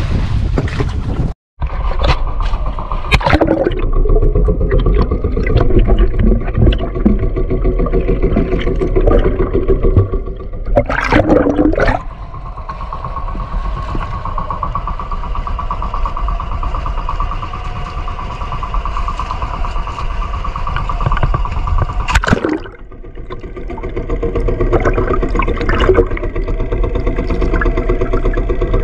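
A fishing boat's engine runs steadily with a fast, even pulse. The sound drops out abruptly about a second and a half in, and again around twenty-two seconds in.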